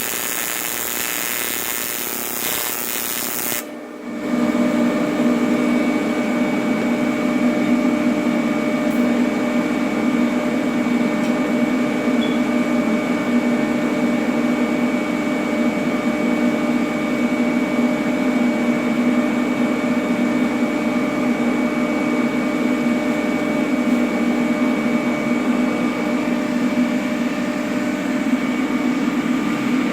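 AC TIG welding arc on aluminum running continuously. It starts as a harsh hiss, then about four seconds in changes abruptly to a steady, even buzz with a few fixed humming tones.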